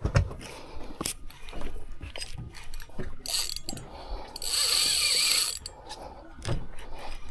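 Spinning reel being cranked against a hooked fish, its gears and handle clicking, with about a second of steady buzzing drag as the fish pulls line off midway through.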